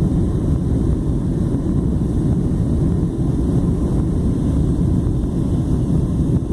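Steady low cabin noise of an airliner on final approach, heard from inside the passenger cabin: the jet engines and air rushing past the fuselage, even and unbroken.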